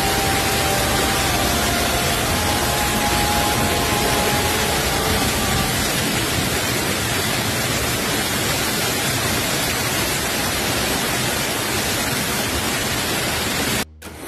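Loud steady rushing noise of a storm, heavy rain and wind, with no break in it; it cuts off abruptly near the end.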